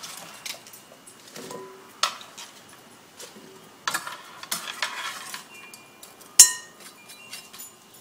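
Kitchen knife chopping bok choy on a cutting board: a few separate sharp strikes with rustling in between, the loudest strike about six and a half seconds in.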